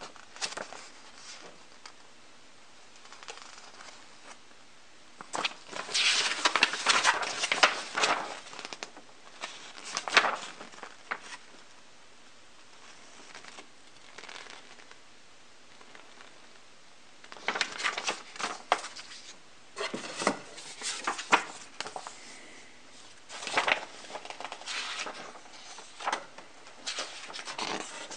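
Paper pages of a model kit's instruction manual rustling and crackling as they are handled and turned. The rustling comes in several bursts, with quiet stretches between them.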